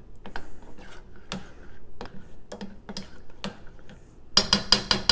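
A spatula scraping and knocking against a stainless steel saucepan as thick barbecue sauce is stirred: scattered clicks, then a quick burst of rapid scraping about four seconds in.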